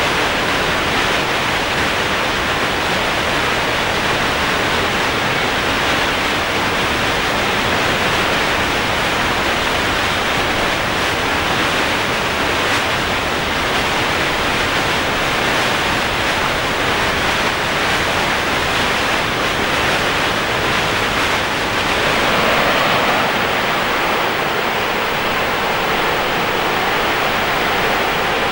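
Merced River whitewater rushing steadily through a narrow granite chute, a dense, even roar of water. About three-quarters of the way through, the rush shifts lower, giving way to the sound of Nevada Fall.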